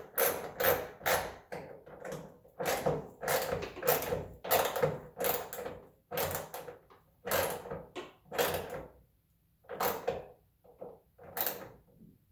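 Ratchet wrench worked back and forth to tighten a bolt, each backswing a short run of clicks, about two strokes a second. The strokes come further apart in the second half and stop near the end as the bolt snugs down.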